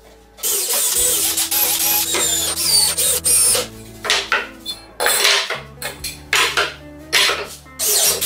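Cordless drill driving screws through perforated metal corner brackets into wood, in several loud runs of one to three seconds with short pauses between, over guitar background music.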